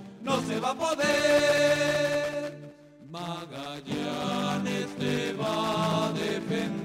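Music with a singing voice holding long, wavering notes over accompaniment. It drops out briefly about three seconds in, then resumes.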